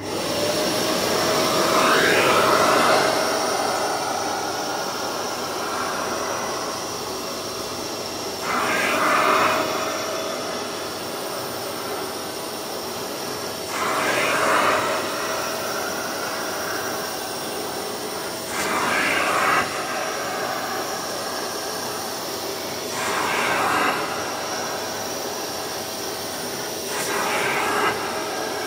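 Carpet spray-extraction cleaner running with a steady motor whine as its suction nozzle is drawn across a fabric car mat. A louder rushing swell of suction comes six times, about every five seconds, with each stroke of the nozzle.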